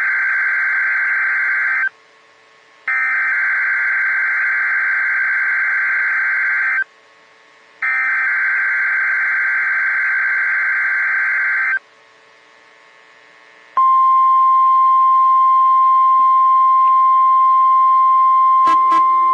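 NOAA Weather Radio alert signal: three bursts of SAME digital header data of about four seconds each, heard as a buzzy screech with a second's pause between them. About 14 seconds in, the steady 1050 Hz weather radio warning alarm tone begins and holds. A couple of sharp clicks come near the end.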